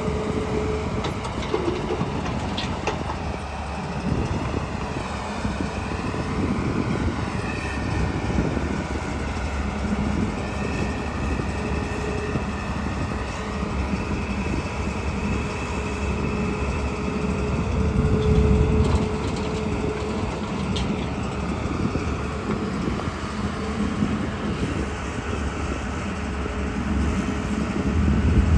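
JCB 3DX backhoe loader's diesel engine running under load as it works, its pitch rising and falling, with a high wavering whine in the first half. The engine swells louder about two-thirds of the way through and again at the end.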